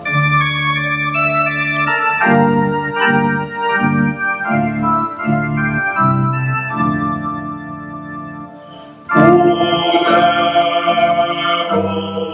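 Organ playing a slow tune in sustained chords over a moving bass line; about nine seconds in it comes in louder and brighter.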